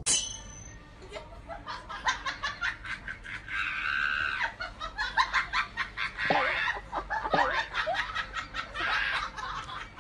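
A person laughing in quick, repeated bursts.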